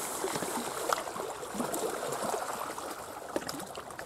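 Faint water trickling and splashing, with a few light clicks scattered through.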